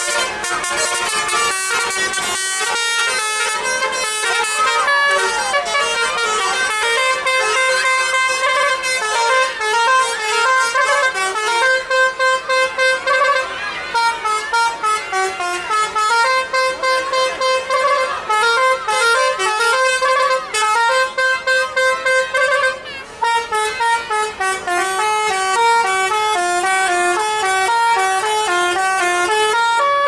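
A tour bus's multi-trumpet 'telolet' musical air horn plays a fast, continuous tune, its notes stepping up and down in quick runs.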